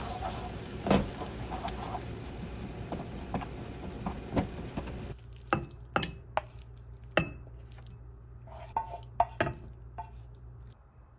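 Wooden spoon stirring and scraping a cabbage, tuna and oatmeal mixture around a nonstick frying pan over a steady hiss. About five seconds in, a string of sharp knocks and scrapes as the food is pushed out of the pan into a ceramic bowl.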